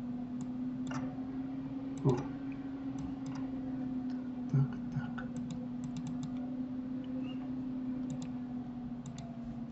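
Scattered clicks of a computer mouse and keyboard, over a steady low hum.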